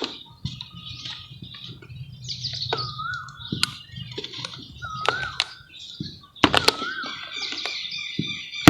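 Red mud crumbling in water, with soft crackles and a few sharp clicks. Birds chirp throughout, one repeating the same short warbling call about every two seconds.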